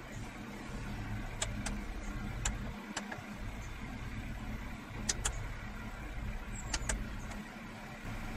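Tractor engine running steadily, heard from inside the cab as a low drone, with a few short, sharp clicks scattered through it.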